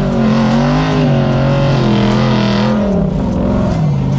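Rat-rod wrecker truck's engine revving hard under load as it climbs a steep sand hill, its tyres spinning in the loose sand. The revs rise and fall, dipping briefly about three seconds in before picking up again.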